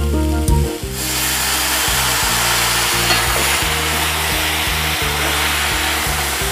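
Loud hissing sizzle that starts suddenly about a second in, as water hits the hot pan of fried chickpeas, coconut and spices and is stirred in with a metal spoon. Background music plays underneath.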